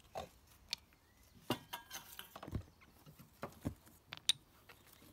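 Scattered small clicks, knocks and rustles of stones and herb sprigs being set into soil and gravel in a plastic tray, with one sharper clink about four seconds in.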